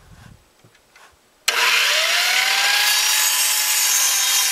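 Radial arm saw switched on about a second and a half in. Its motor whine rises as it comes up to speed and then runs steady while it crosscuts a wooden board.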